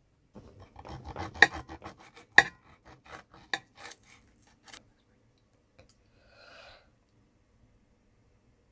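Steel knife and fork cutting a steak on an enamelware plate: a quick run of scrapes and clinks of metal on the plate, the two loudest about one and a half and two and a half seconds in, dying away about five seconds in. A single click and a brief soft scrape follow.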